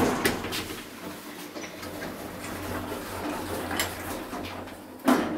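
KONE elevator car's sliding doors closing: a click at the start, a low steady hum as the panels travel, then a sharp thud as they shut about five seconds in.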